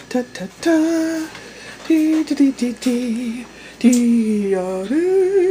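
A woman's voice singing a slow, wordless tune, with long held notes and gentle slides between them.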